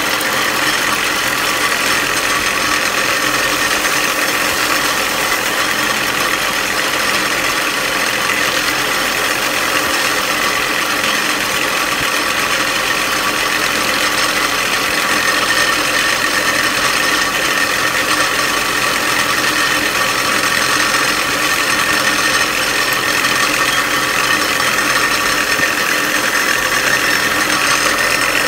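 Craftsman 113.225931 6x48-inch belt and 9-inch disc sander running steadily, its motor and belt-driven belt and disc turning at an unchanging speed. The belt's tracking has drifted off again, which the owner finds very sensitive.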